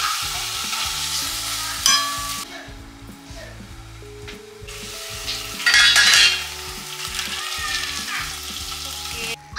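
Salmon fillets sizzling in oil in a stainless steel frying pan while a metal spatula scrapes and turns them. A ringing metal clank comes about two seconds in, the sizzle is quieter for a couple of seconds after it, and then it swells loudly for a moment around the middle.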